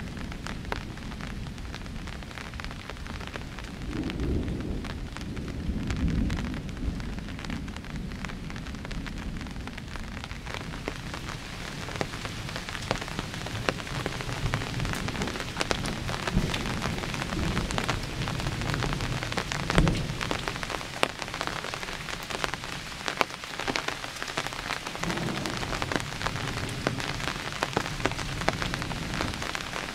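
Rain falling steadily with drops pattering on a surface, getting heavier about halfway through. Thunder rumbles several times underneath, with a sharper crack of thunder about two-thirds of the way in, the loudest moment.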